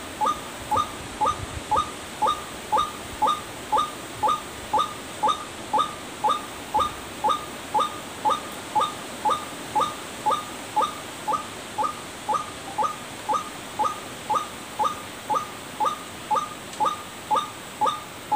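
Recorded white-breasted waterhen (ruak-ruak) call played through a loudspeaker as a bird lure. It is a short, sharp note repeated very evenly, about twice a second.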